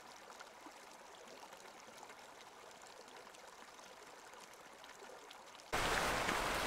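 Shallow mountain creek running over rocks, a faint, steady babble. Near the end a much louder rushing hiss cuts in suddenly.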